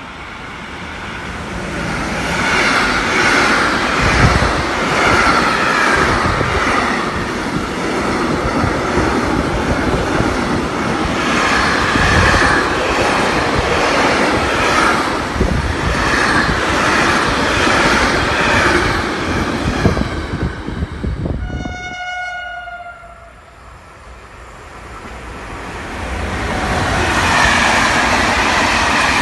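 A train passing close by, its wheels clattering in a repeating rhythm as the wagons roll past. About three-quarters of the way through the noise dies away and a short horn note sounds, then another train's rumble builds up again near the end.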